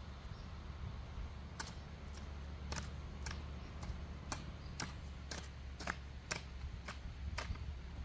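About a dozen sharp, short clicks or knocks at uneven intervals, starting about a second and a half in, over a steady low rumble.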